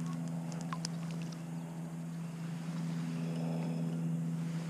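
Electric trolling motor on a fishing kayak humming steadily, with a few light clicks about a second in.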